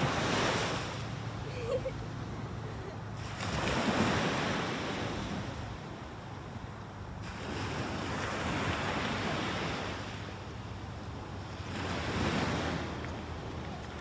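Ocean surf breaking on the beach, a rushing wash of noise that swells and falls back every few seconds, with some wind on the microphone.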